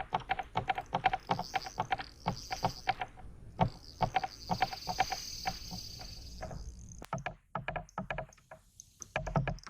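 Fishing reel clicking in rapid, uneven runs while a hooked fish is being played, with a hiss joining in about three and a half seconds in.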